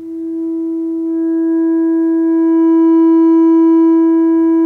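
Steady sine-wave note from a signal generator played through a small loudspeaker. It swells over the first second or so as the amplitude is turned up, then holds loud, with fainter higher overtones coming in as it gets louder.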